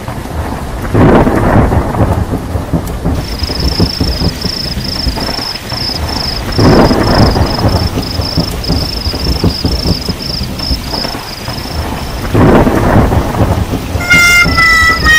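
Thunderstorm sound effect: rain falling steadily, with three rolls of thunder about one, seven and thirteen seconds in. A high pulsing tone repeats about three times a second through the middle, and music comes in near the end.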